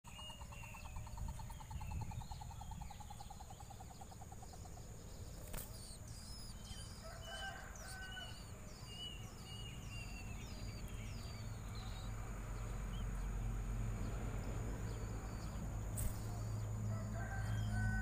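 Small songbirds calling at a nest: nestlings and an adult give a string of short, high, repeated chirps through the middle and again near the end. Early on a rooster crows faintly, and a low rumble grows louder toward the end.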